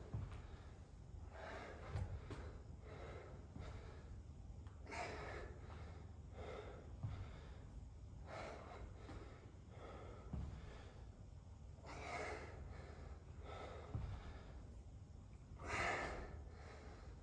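A man breathing hard through a set of walking dumbbell lunges: forceful exhales and gasps every second or two, the loudest near the end, with a few soft thuds of footsteps on the rubber floor.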